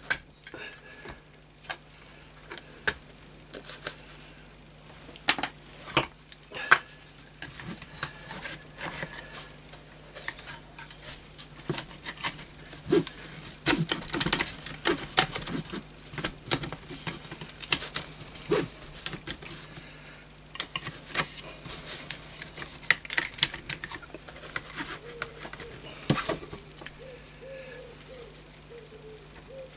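Irregular sharp metallic clicks, taps and clinks of steel parts being handled while the roll pins and pump lever are worked at the pump end of a vintage Setra pump-up air rifle. A few of the taps are much louder than the rest.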